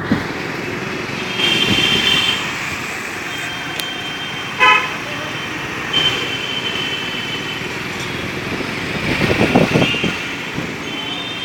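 Vehicle horns honking several times in street traffic over the steady running of engines and road noise: a horn about a second long about one and a half seconds in, a short honk near the middle, and more around six and ten seconds in. A louder engine rumble swells near the end.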